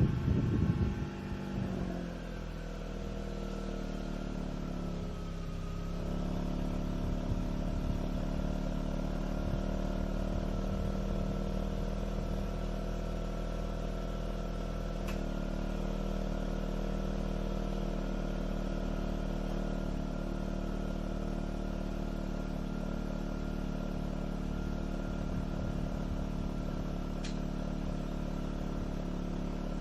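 Mazda RX-8's two-rotor Renesis rotary engine idling after a Seafoam treatment. A short burst of wind noise on the microphone at the very start, then the idle eases down over the first few seconds and holds steady.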